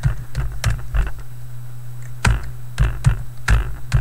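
Typing on a computer keyboard: a run of separate keystrokes at uneven spacing, over a steady low hum.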